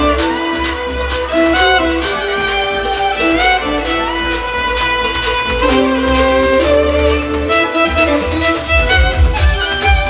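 Live band music: a violin plays the melody over a steady beat and a deep bass line.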